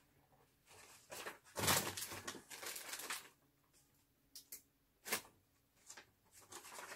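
A sheet of paper rustling and crinkling as it is handled. The loudest, longest burst is about one and a half to three seconds in, with a few short rustles after it.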